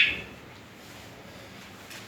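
Budgerigar giving one short, sharp chirp right at the start, followed by faint background.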